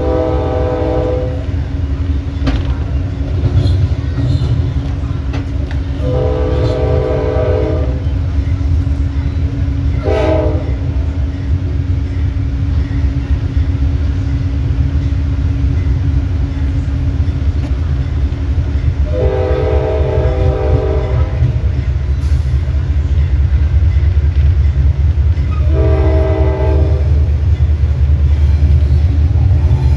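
Amtrak Dash 8-32BWH locomotive's Nathan K5LA five-chime air horn sounding five blasts for a grade crossing: three long blasts, one short blast, then a final longer one. Under the horn, the locomotive's diesel engine and the wheels on the rails rumble steadily as the train runs.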